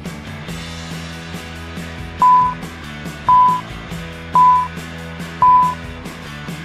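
Four loud electronic beeps, each a short single tone, coming about a second apart over background music with a steady beat.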